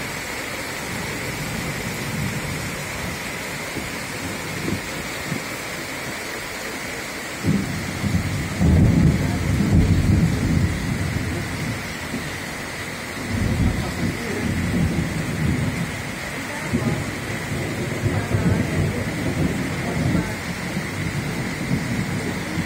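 Heavy rain pouring down steadily. Low rolling thunder comes in suddenly about a third of the way in and rumbles again a few seconds later.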